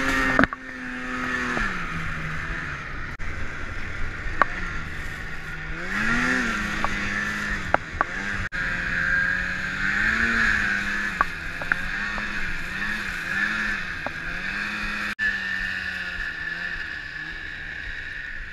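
Snowmobile engine running under way, its pitch rising with the throttle near the start and again about six seconds in, then holding fairly steady with small surges. A loud steady hiss runs over it, and there are a few sharp clicks.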